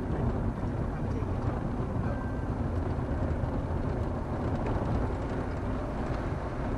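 Steady road and engine noise heard inside a car cruising along a narrow paved road, a low rumble with no sudden events.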